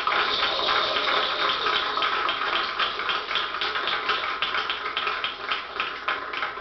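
Audience applauding: many hands clapping in a dense, irregular patter that slowly weakens toward the end, heard as recorded off a television's speaker.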